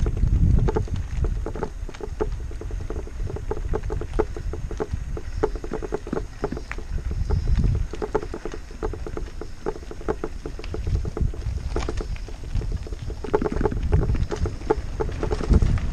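Mountain bike rolling over a rough, cracked concrete road, with frequent rattles and clicks from the bike and its mounted camera, under steady wind rumble on the microphone.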